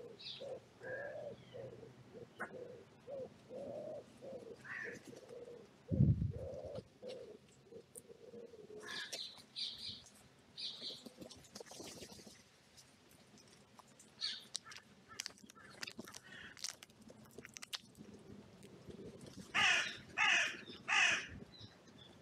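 Pigeon cooing over and over for the first several seconds, with a brief low thud about six seconds in, then small birds chirping among light ticks. Near the end a crow caws three times, loud.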